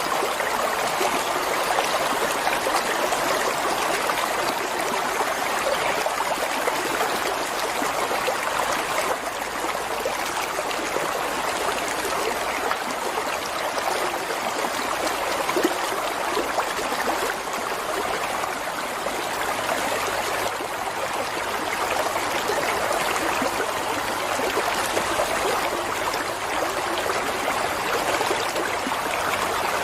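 Water running steadily in a stream, an even rushing and trickling.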